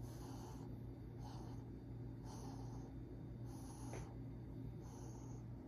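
Soft, close breathing: a short puff about once a second over a steady low hum, with one small click about four seconds in.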